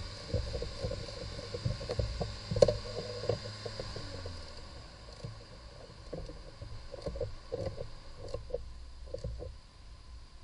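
Irregular clicks and taps of a screwdriver working at the mounting of the car's heater valve unit, with one sharper knock about two and a half seconds in. A low steady hum underneath stops about four and a half seconds in.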